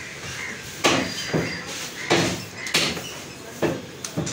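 Sharp knocks and taps from butchering goat meat by hand, about six at uneven intervals, each about half a second to a second apart.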